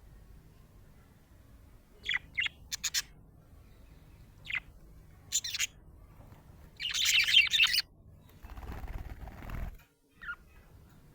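Budgerigar chirping: a few short separate chirps, then about a second of rapid chatter, the loudest part. After that comes about a second of rustling noise and one last short chirp.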